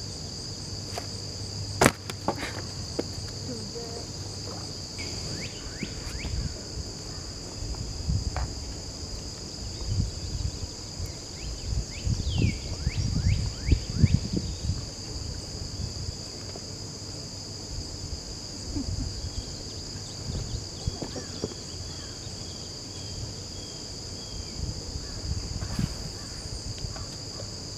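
Steady high-pitched drone of a summer insect chorus, unbroken throughout, with uneven low thumps and rustles and a sharp click about two seconds in.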